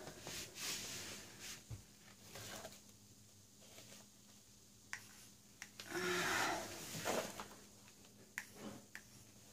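Faint handling sounds: light clicks and taps of objects being picked up and set down, with cloth rustling, the loudest a longer rustling swish about six seconds in.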